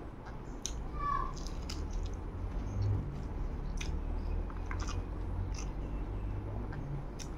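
Close-up eating sounds of a person chewing a mouthful of rice and curry eaten by hand, with many short wet clicks and smacks of the mouth over a low steady hum.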